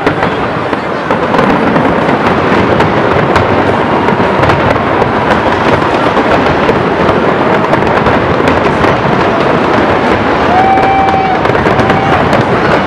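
Aerial fireworks display: many shells bursting at once in a dense, unbroken crackling studded with sharp cracks.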